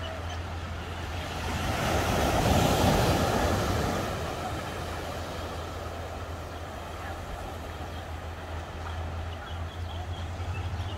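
Beach ambience: small waves washing on the shore under a steady low wind rumble, with a rush of noise that swells and fades about two to four seconds in.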